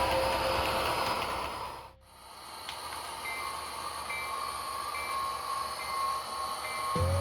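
Background music fades out over the first two seconds, leaving the sound of an HO scale model diesel locomotive: a steady running hum with a short high ding repeating a little more than once a second. A deeper horn-like tone starts just before the end.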